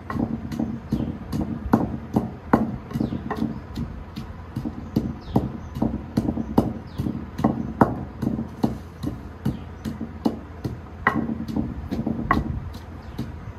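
Long wooden pestle pounding green ingredients in a mortar: a steady run of thuds, about two to three strokes a second.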